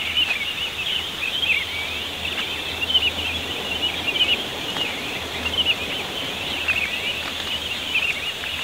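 Dawn chorus of many small birds chirping and trilling at once, busy and continuous, with short rising and falling notes overlapping.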